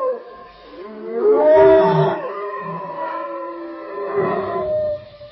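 Distant wolf howling: one howl slides down and fades just after the start, then a new howl rises about a second in and holds, swelling again just past four seconds before dropping away near the end.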